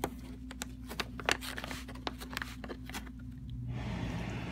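A paper envelope crackling and crinkling in quick irregular clicks as a cat bites and chews at it, stopping about three and a half seconds in; a soft steady rush follows near the end.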